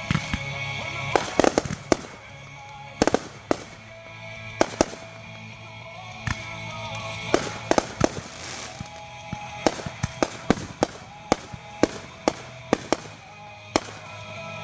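Consumer fireworks going off: a string of sharp bangs and pops at irregular intervals, some in quick pairs, over background music.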